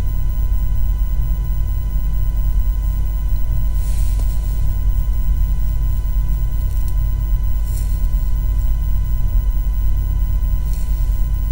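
Steady low rumble with a thin steady tone above it, and faint brief rustles of a cotton dupatta being handled about four, eight and eleven seconds in.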